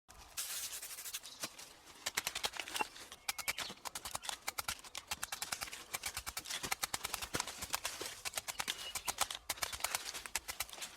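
Rapid, irregular sharp taps and clicks of a hard tool on rock, several a second, with a short scraping hiss near the start, as stone is chipped and dug out of a cliff face.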